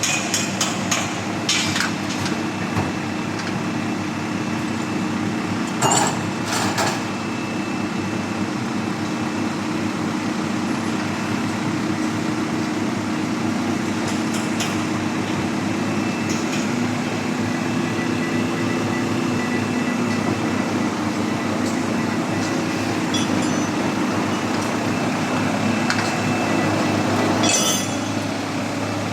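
Airman 60 kVA diesel generator running steadily with a constant low hum, with a few short clicks and knocks.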